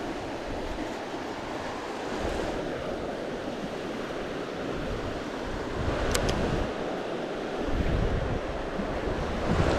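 Fast river water rushing steadily, with low rumbles of wind on the microphone and a couple of sharp clicks about six seconds in and near the end.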